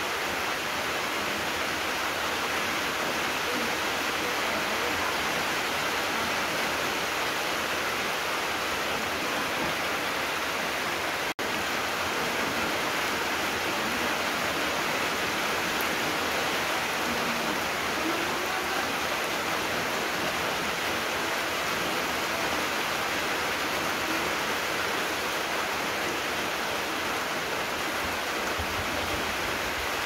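Steady rain falling, a continuous even hiss. The sound briefly cuts out about eleven seconds in, then carries on unchanged.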